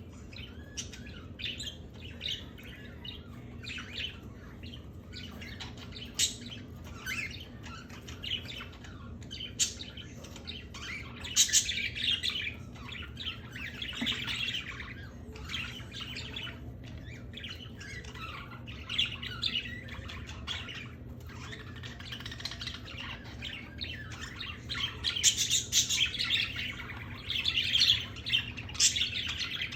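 Several pet birds chirping and squawking in quick, overlapping calls, busiest about a dozen seconds in and again near the end.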